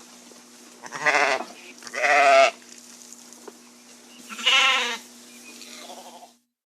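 Sheep bleating: three wavering calls, the second and third a little longer than the first, over a faint steady hum. The sound cuts off abruptly near the end.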